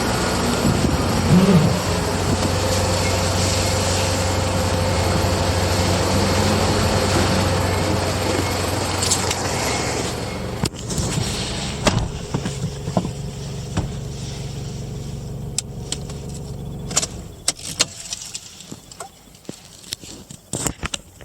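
Toyota 1KZ-TE turbo diesel in a 95-series Land Cruiser Prado running steadily. Its sound drops sharply about halfway through, fades out about three quarters of the way in as the engine stops, and a few scattered clicks and knocks follow.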